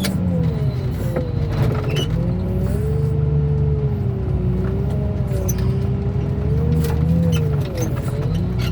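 Diesel engine of a hydraulic grapple machine working under load, its pitch rising and falling as the boom is worked, with a higher whine that bends with it and a few sharp metal knocks.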